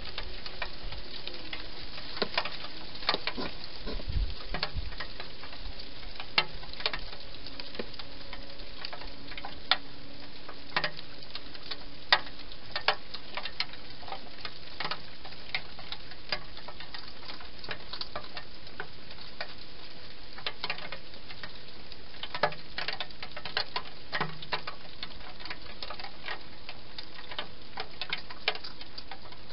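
A wild hedgehog feeding from bowls inside a plastic feeding box: a run of irregular sharp clicks and crunches, in clusters, over a steady background hiss.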